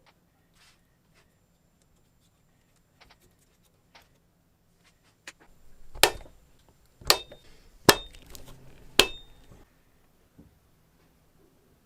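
Small metal parts or tools clinking during hands-on assembly of a miniature four-cylinder engine. There are light clicks at first, then four sharp metallic taps about a second apart, each with a brief ring.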